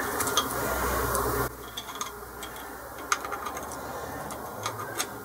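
Light clicks and taps of ceramic connector blocks, wires and a small screwdriver being handled in an electric motor's terminal box. A rustling noise runs for the first second and a half, and a few separate clicks follow.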